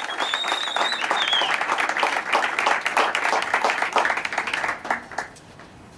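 Audience clapping in applause, with a high whistle over it in the first second and a half; the applause dies away about five seconds in.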